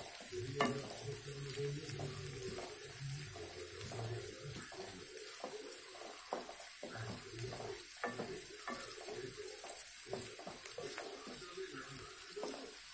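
Sliced shallots sizzling steadily in plenty of hot sesame oil in a pan, with repeated scrapes and light knocks of a wooden spatula stirring them as they fry toward golden brown.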